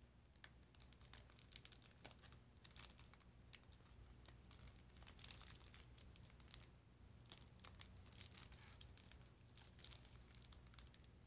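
Faint, irregular crinkling and crackling of a strip of small plastic sachets handled between the fingers, over a steady low hum.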